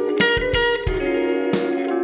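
Background music: a guitar instrumental with plucked notes over a regular beat.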